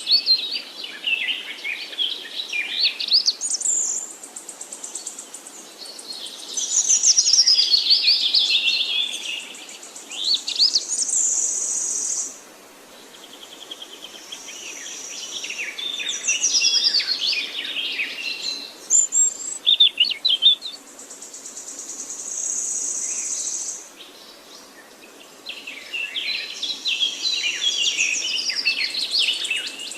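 Several songbirds singing, with phrases of quick chirps, whistles and trills that overlap and pause. A high, thin, steady trill comes and goes every few seconds.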